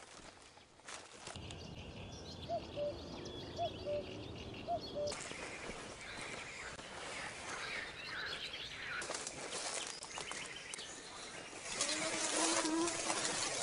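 Birds calling in riverside woodland: a low two-note call, the second note lower, repeated three times about a second apart in the first half, then higher chirps. Under them is a rustling noise that gets louder in the second half and is loudest near the end.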